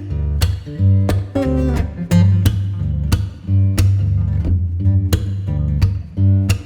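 Background music: acoustic guitar being strummed and plucked, over a steady bass beat.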